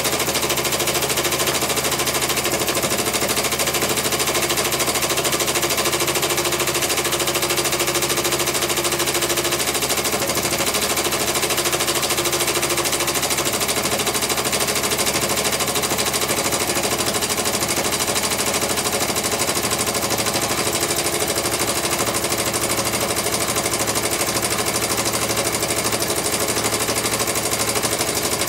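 Modified twin-cylinder Mamod MEC1 toy steam engine running fast, a steady, rapid stream of exhaust beats and mechanical clatter from its small oscillating cylinders.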